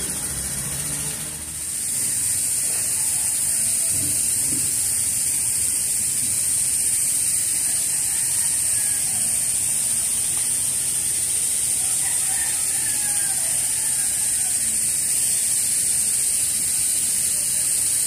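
Steady, high-pitched insect drone, dipping briefly about a second and a half in.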